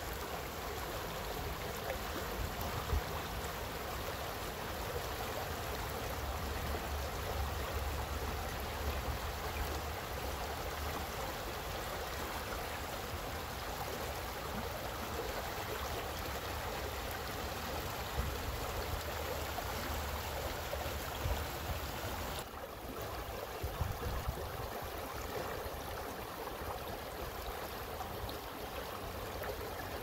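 Shallow rocky stream running over and around stones in small riffles: a steady rush of flowing water.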